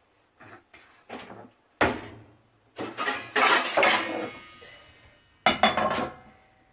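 Metal cookware and utensils clattering: a few light knocks, then two longer bouts of clanking that ring on briefly, one about three seconds in and one near the end.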